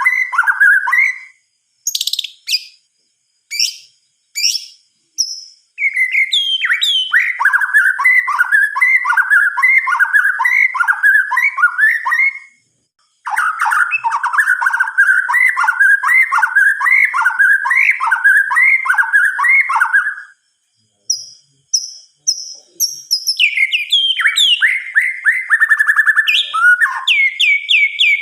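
White-rumped shama singing: long runs of fast, rolling repeated phrases, broken by a few short pauses and sharp high whistled notes, with a rapid trill near the end.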